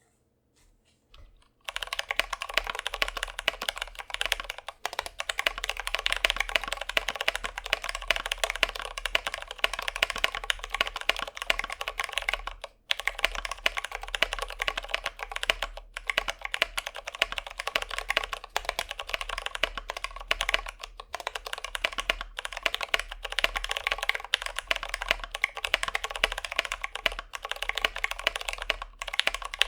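Fast continuous typing on an Idobao ID80 mechanical keyboard with Zealios v2 67g tactile switches and PBT keycaps, a dense run of keystroke clacks with a few brief pauses. A few faint taps come first, and the steady typing starts about two seconds in.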